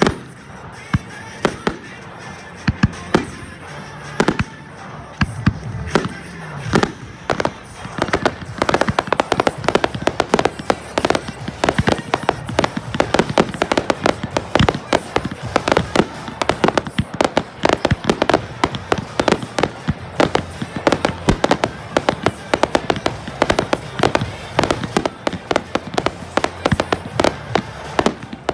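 Fireworks display: aerial shells bursting in a string of sharp bangs and crackles, scattered at first and coming thick and fast from about eight seconds in.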